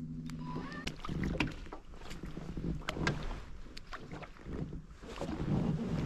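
A steady low hum stops about half a second in. Irregular knocks and clatter follow over a low rumble and sloshing noise: handling sounds in a small fishing boat.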